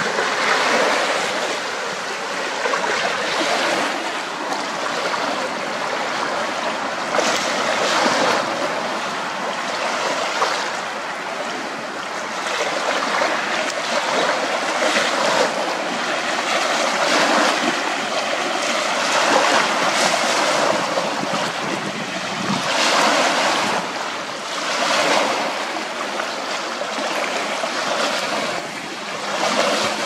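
Choppy, wind-driven waves breaking and splashing against shoreline rocks and driftwood: a continuous wash that swells into a louder splash every second or two.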